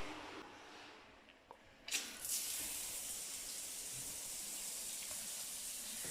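Near silence, then a short click about two seconds in, followed by a faint steady hiss.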